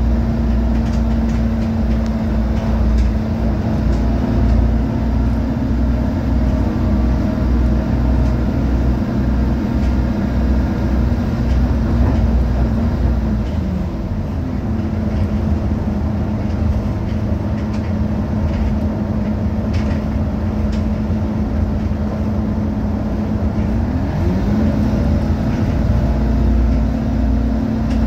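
Interior of a ZAZ city bus under way: a steady drone from the drivetrain over a heavy road rumble. The drone's pitch dips about halfway through and climbs again near the end as the bus changes speed.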